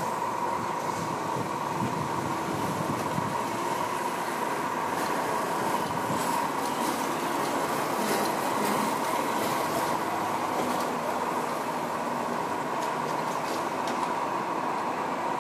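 Steady vehicle noise with a constant mid-pitched hum and a few faint clicks in the middle.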